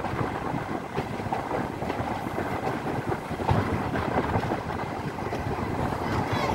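Passenger train running along the track, heard from a coach window: a steady rush of wheel and wind noise with a few sharp knocks from the wheels.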